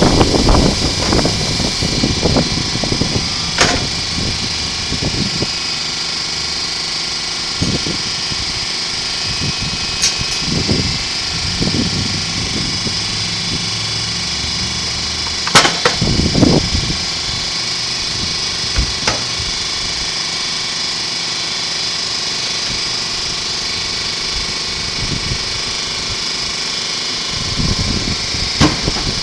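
Metal clanking and knocking on a steel workbench as the stator is worked out of a cut-open scroll compressor shell, with the heaviest knocks about halfway through. A steady mechanical hum runs underneath.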